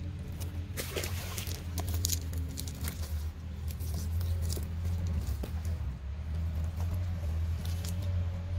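A cast net and freshly caught fish being handled on the ground: scattered rustles, wet slaps and flaps, clustered about a second in and again near the end, over a steady low hum.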